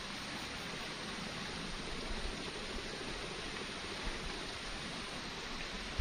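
Steady rushing of flowing river water, an even hiss with no distinct events.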